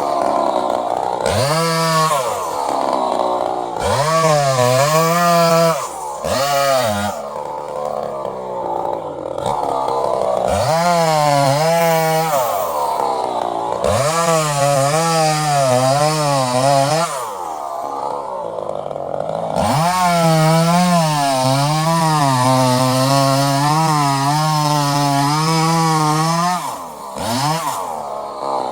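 Chainsaw revving up and down over and over while cutting wood: the engine pitch climbs sharply with the throttle, then settles lower and wavers as the chain bites into the cut.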